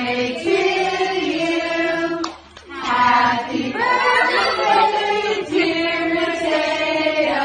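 A choir singing long held notes, stopping briefly about two and a half seconds in and then going on.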